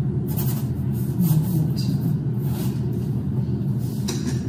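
A steady low rumble runs under several brief scratchy strokes of a paintbrush scrubbing oil paint onto a linen canvas.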